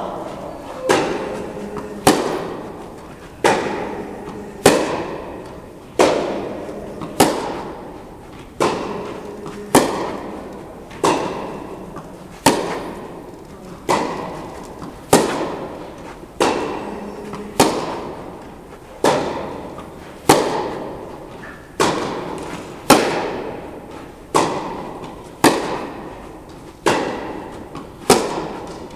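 Tennis balls struck by rackets in a steady rally, a crisp hit about every 1.3 seconds. Each hit rings on in the reverberant indoor tennis hall.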